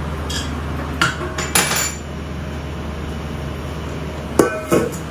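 Kitchen dishes and utensils clattering: a few knocks and a short rattle in the first two seconds, then two ringing metallic clinks near the end, over a steady low hum.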